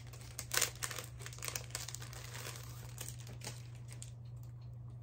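Thin plastic packaging crinkling and rustling as a bookmark is pulled out of its sleeve. It comes in irregular crackles that thin out about four seconds in.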